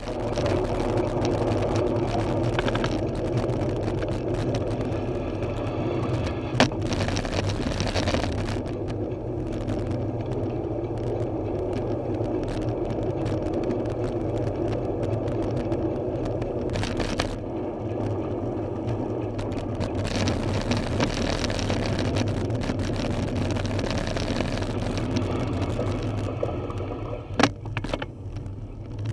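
Wind rushing over the microphone of a bicycle-mounted camera while riding, mixed with road noise. A sharp click comes about six and a half seconds in and another near the end, as the noise eases off.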